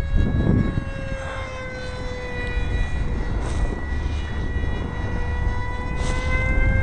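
Brushless electric motor of a foam RC F-22 jet, run on a 5-cell LiPo, whining steadily at high throttle in flight, its pitch sagging slightly a second or two in. A low rumble of wind on the microphone runs underneath.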